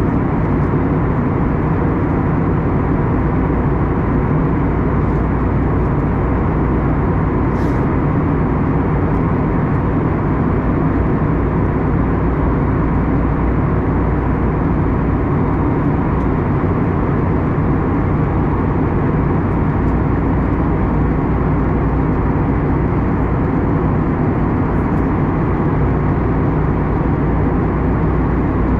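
Steady cabin noise inside an Airbus A321neo in flight: an even, unchanging drone of the engines and rushing air. A faint high click about eight seconds in.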